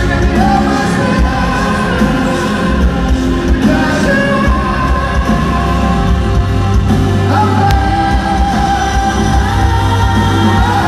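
Live pop-rock band playing loudly with a male lead singer, heard from the crowd in an arena; the singer holds long notes over heavy bass in the second half.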